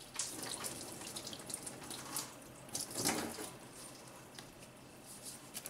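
Engine coolant running out of a disconnected radiator hose into a drain pan, with a few clicks and rubs from the hose being handled.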